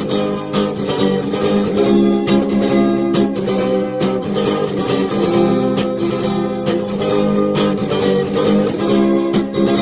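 Acoustic guitar strummed in a steady rhythm of chords, with no voice.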